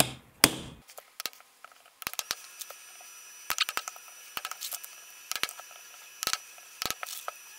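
Two sharp hammer blows on a metal tool in the first half second, followed by a run of light, irregular metallic clicks and taps as the hammer and tools are handled.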